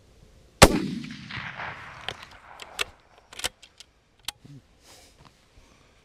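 A single rifle shot about half a second in, its report echoing and trailing off over the next couple of seconds, followed by several small clicks and knocks.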